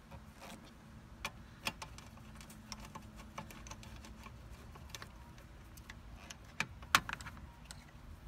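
Socket wrench with a 10 mm socket on an extension turning down nuts on a car's fuse block: scattered metallic clicks and clinks of the tools, with a loud clank about seven seconds in.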